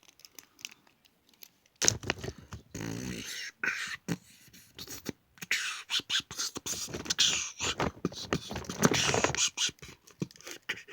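A person making beatbox-like mouth sounds: irregular clicks, hisses and puffs, with a short hum about three seconds in.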